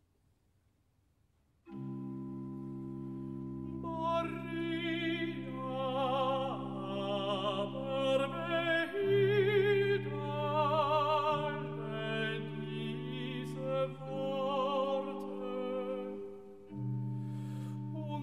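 Classical vocal music: a singer with a wide vibrato over sustained low accompanying chords. The accompaniment comes in about two seconds in after a short silence, and the voice enters about two seconds later.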